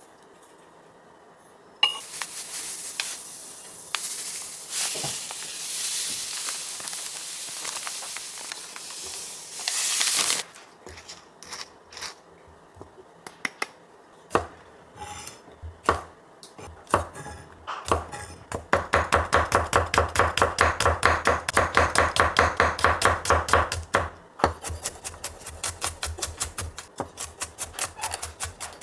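A Henckels chef's knife mincing garlic on a wooden cutting board, a fast, even run of chops at about six a second, starting about two-thirds of the way in. Before it comes a long grainy scraping as chili powder and sugar are spooned into a glass measuring cup, then a few light clicks and taps of a ceramic jar's lid.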